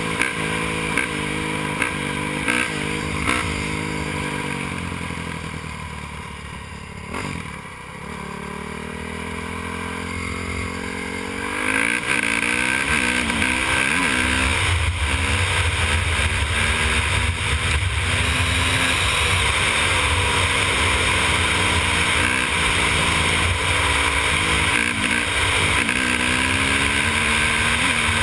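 2002 Honda CRF450R's single-cylinder four-stroke engine under way. It revs up and down in quick blips over the first few seconds, eases off and drops in pitch around six to eight seconds in, then pulls back up through the gears. From about twelve seconds in, wind rushes over the microphone and the engine rises and falls with each shift.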